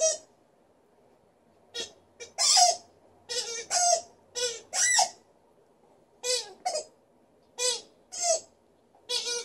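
Green rubber squeaky ball squeaking as a dog chews it: about a dozen short squeaks in irregular runs, after a pause of well over a second near the start.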